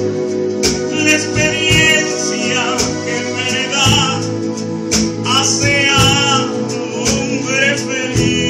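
A man singing a worship song with wide vibrato, accompanied by his own acoustic guitar and a live band.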